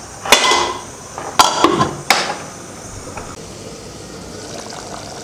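Stainless steel pot lid clanking against the rim of a cooking pan as it is put on, about four sharp metal clanks in the first two seconds, then a faint steady hiss.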